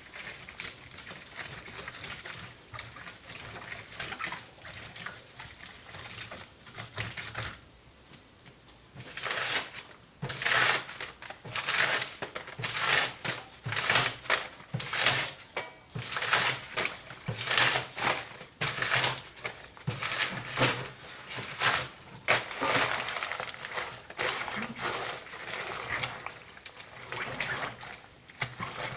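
Hands squeezing and kneading wet shredded paper in a basin of water, a soft squelching as papier-mâché pulp is worked. About nine seconds in, a louder run of short rasping rips begins, one or two a second, as sheets of book paper are torn up for the pulp.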